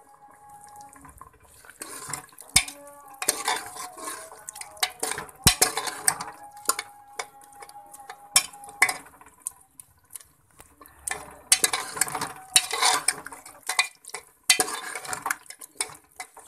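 A ladle scraping and knocking against the metal pressure cooker as okra and mutton curry is stirred while it is fried down until the water dries off. The scrapes come in irregular bursts, with a lull about halfway.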